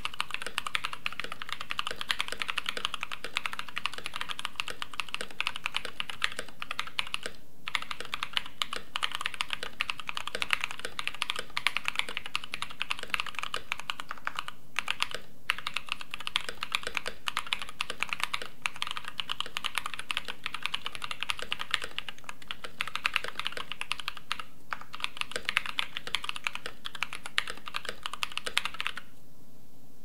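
Continuous typing on a KBD67 Lite mechanical keyboard fitted with lubed Bolsa Supply Corsa tactile switches (nylon housing, POM stem), an FR4 plate and PBT keycaps: a dense run of key clacks. The typing breaks briefly three times and stops shortly before the end.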